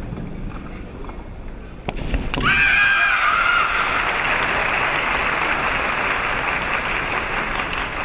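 A bamboo shinai strike cracks about two seconds in. It is followed at once by a kendo fencer's long, high-pitched kiai shout, then by sustained applause from the crowd.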